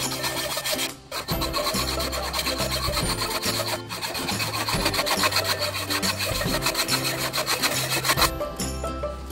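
Hacksaw cutting into the metal clamp of a scooter's kick-start lever in quick back-and-forth strokes. The cut widens the lever's worn clamping slot so it can be tightened onto the shaft again.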